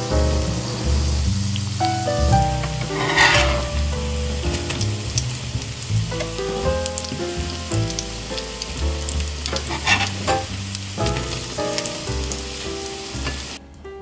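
Shrimp and chive pancakes (saeu buchujeon) sizzling and crackling in hot oil in a Staub cast-iron frying pan, with two louder bursts of sizzle around three and ten seconds in. Background music plays throughout, and the sizzling cuts off just before the end.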